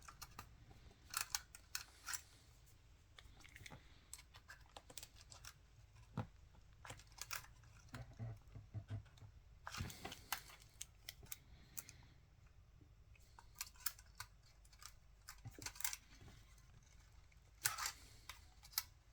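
Scattered small clicks and taps of fingers and a small tool on the plastic and metal internals of a Canon EOS 5D DSLR as a cable connector is worked loose, coming in short clusters over a faint steady hum.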